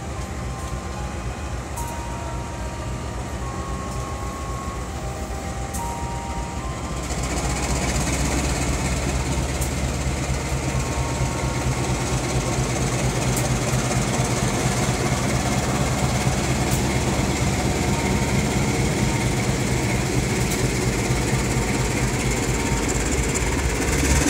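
Indonesian CC 204 diesel-electric locomotive pulling its train out, its engine running with a steady low hum. From about seven seconds in it grows louder as the locomotive comes alongside and passes, then the coaches roll by with a steady rumble and an occasional sharp clack.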